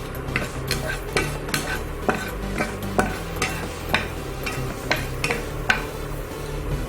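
A utensil stirring whole spices frying in oil and ghee in a pan: repeated scrapes and taps against the pan, about two a second, over a light sizzle.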